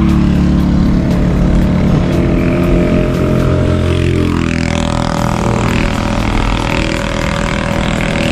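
A motor vehicle passing close by on the road. Its engine drone falls slightly in pitch as it goes by, with a sweeping rush about four to five seconds in.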